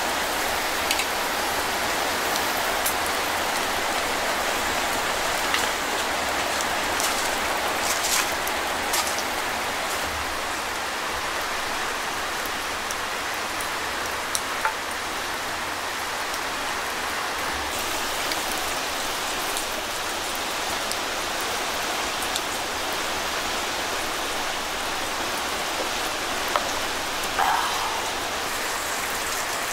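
Steady rain falling on a tent shelter, with a few light clicks scattered through it. Near the end comes a short pour of liquid into a cup.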